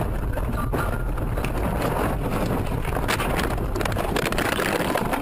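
A car crashing off a snowy road into deep snow, heard from inside the cabin: a dense rushing, rumbling noise of snow and bodywork, with several hard knocks.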